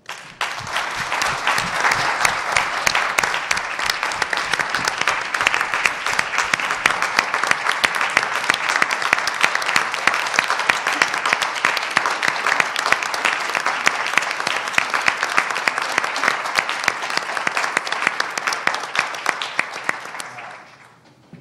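Audience applauding: dense, steady clapping that starts suddenly and dies away about twenty seconds in.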